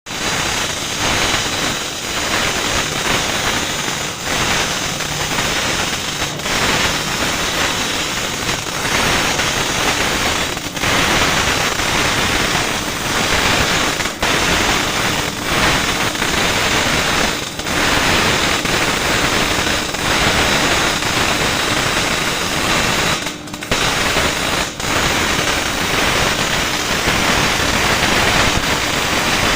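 Electric welding arc crackling and spattering steadily, with a few brief breaks in the arc.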